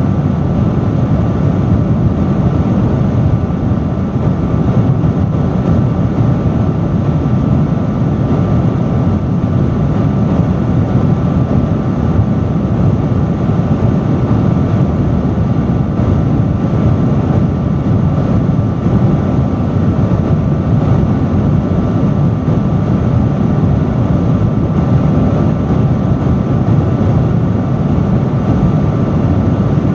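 Industrial fan running at a steady speed: a loud, even rush of air weighted toward the low end, with a faint steady whine of a few tones above it.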